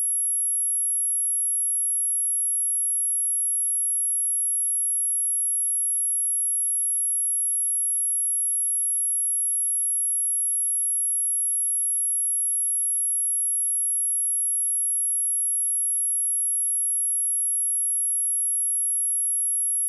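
A steady, very high-pitched pure tone: an 11207 Hz sine-wave test tone, held at one pitch and one level, used to test speakers and to shake water and dust out of them.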